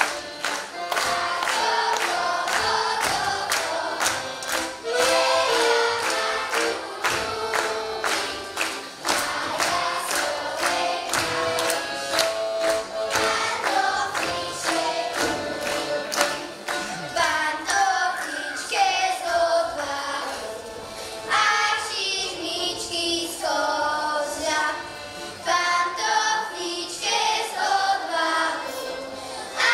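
Children singing a folk song with music, set to a sharp steady beat of about three strokes a second through the first half, after which the sung melody carries on alone.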